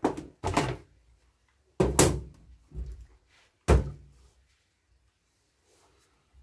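About five sharp knocks and thunks from a chainsaw's housing being handled as parts are fitted back on, the loudest about two and four seconds in, followed by faint rustling.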